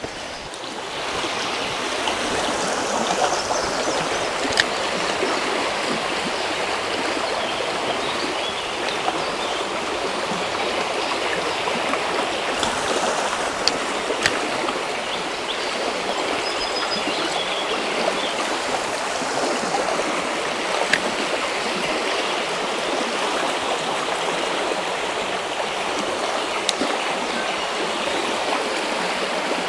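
Fast-moving creek water rushing steadily, with a few sharp clicks over it.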